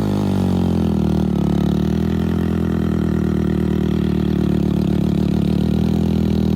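Heavy vehicle's diesel engine running steadily under load as it climbs a steep earth mound. It holds an even, slightly pulsing note throughout.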